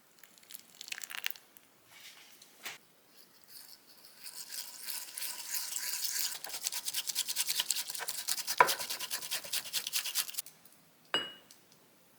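Matcha being whisked briskly in a cup, a rapid scratchy brushing of many quick strokes lasting about six seconds, after a few light clinks and scrapes. A single ringing clink of something hard against the cup comes near the end.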